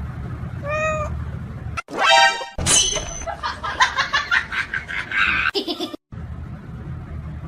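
Domestic cat meowing: one meow about a second in and a louder, higher call around two seconds in. Music runs through the middle, and the sound cuts out briefly near the end.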